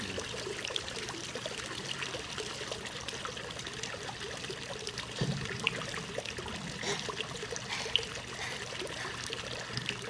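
Water from a small decorative waterfall pouring and trickling into a pond, splashing where a hand is held in the falling stream, with a few sharper splashes in the second half.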